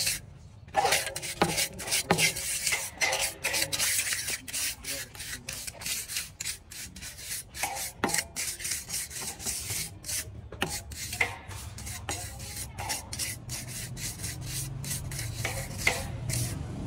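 Rapid, uneven scraping strokes on a hard surface, many per second, with a brief pause just after the start.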